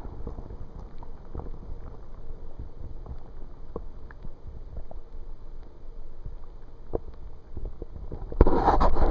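Underwater sound heard through a waterproof camera: a low, muffled rumble of moving stream water with scattered faint clicks and knocks. About eight seconds in comes a sudden loud splashing rush as the camera is pulled up through the surface.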